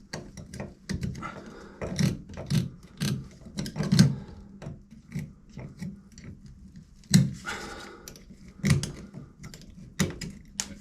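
A string of irregular knocks and clicks, one or two a second.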